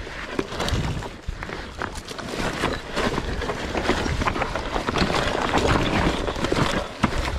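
RFN electric dirt bike ridden over a rocky trail: tyres crunching over rocks and leaf litter, with a continuous clatter of many small knocks and rattles from the bike, getting somewhat louder near the end.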